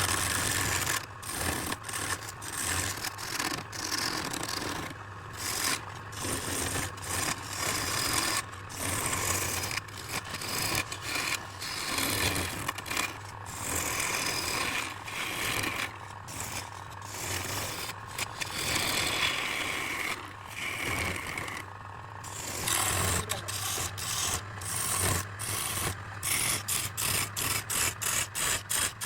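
Redwood being scraped and cut on a woodturning lathe in repeated rasping strokes over a steady low hum, with the strokes coming faster near the end.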